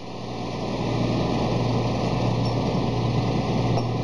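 Truck-mounted crane's engine running steadily as it holds a load on its boom, a low even hum that grows louder over the first second and then holds.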